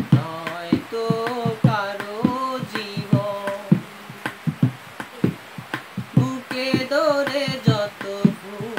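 A Bengali song: a melismatic singing voice over a steady hand-drum beat.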